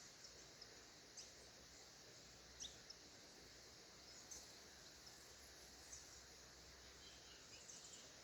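Small birds chirping faintly: short, high chirps scattered every second or two, the clearest about two and a half seconds in, over a steady high hiss.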